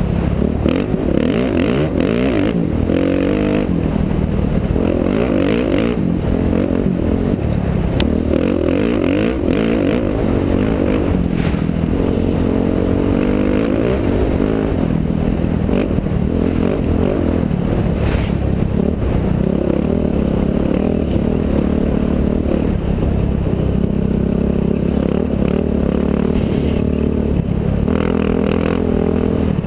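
Off-road race vehicle's engine heard from on board, running hard and rising and falling in pitch as it accelerates and eases off, with continual rattling and clatter.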